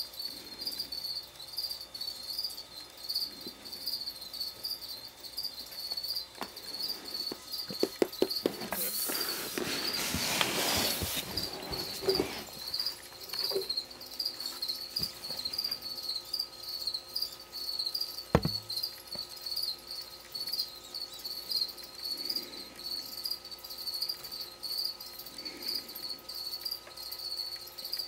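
Crickets chirping in a steady, evenly pulsing high trill. A burst of rustling noise is louder for a few seconds near the middle, with a few clicks just before it and a single knock a little later.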